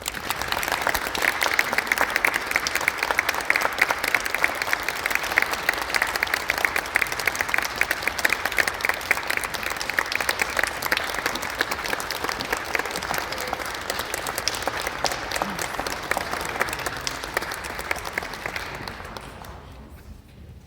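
Audience applauding, sustained clapping that fades away over the last couple of seconds.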